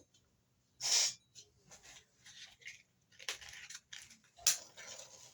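A few short, separate hissing scrapes, the loudest about a second in, as a gas cooker is being lit.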